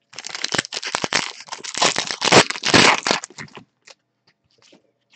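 Foil wrapper of a trading-card pack being torn open and crinkled, a dense crackling for about three and a half seconds, then a few faint flicks as the cards are handled.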